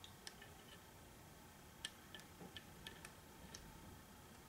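Near silence with several faint, irregularly spaced light clicks from the opened plastic Speak & Spell case being held and handled.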